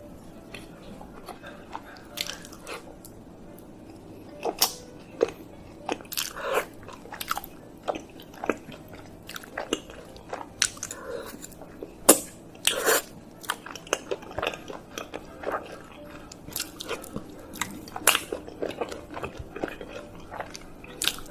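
Close-miked eating of chocolate mochi: irregular bites and chewing with sharp crunchy clicks, a few of them louder than the rest.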